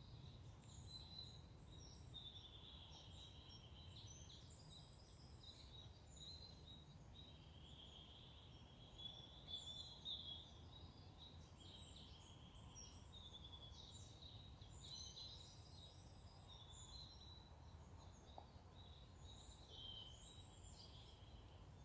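Faint woodland birdsong: many short chirps and trills from small birds, over a low steady background hiss.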